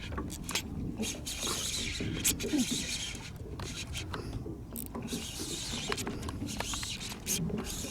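Fishing reel being wound: a steady run of small mechanical clicks and rubbing.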